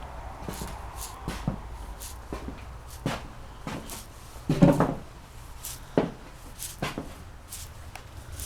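A butterfly making sharp, irregular clicks, roughly one a second, with one louder, longer rasp about four and a half seconds in.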